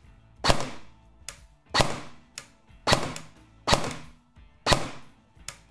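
A&K K25 (SR25/M110-style) airsoft electric gun firing in semi-auto: five sharp shots about a second apart, each with a short fading ring, and lighter clicks between them. The action responds quickly, with little gear noise.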